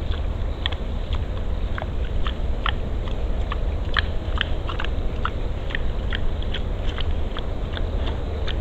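A wild boar chewing and crunching feed off the ground: irregular short crisp crunches, a few a second, over a steady low background rumble.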